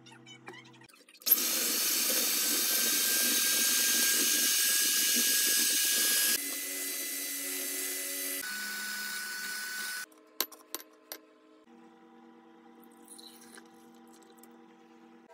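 Electric hand mixer whipping a dalgona coffee mixture of instant coffee, sugar, chocolate, hot water and cream, running steadily with a high whine. It is louder for the first five seconds or so, quieter after, and stops about ten seconds in, followed by a few sharp clicks.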